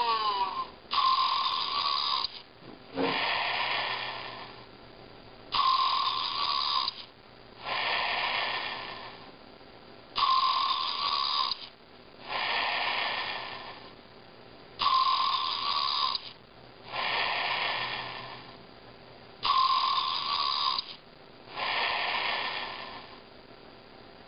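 A plush pig toy's electronic snoring sound, repeating in an even loop about every four and a half seconds. Each cycle is a snore with a steady hum, then a longer breathy hiss, five times over.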